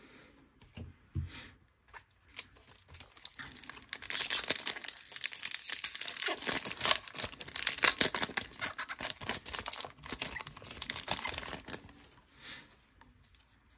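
Foil wrapper of a trading card pack being torn open and crinkled by hand: a dense crackling that starts about four seconds in and stops shortly before the end.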